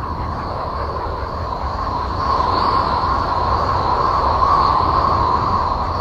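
Uranus 'space sound' made from NASA Voyager 2 data turned into audio: a steady rushing drone with a low rumble underneath and a ringing tone running through it, growing a little louder about two seconds in.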